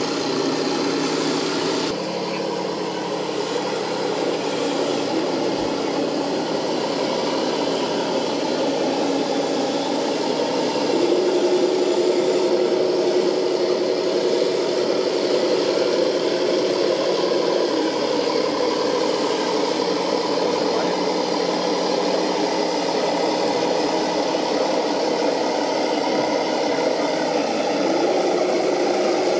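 RC model tanks running, their sound units playing a steady simulated tank-engine drone that steps up and down in pitch a few times.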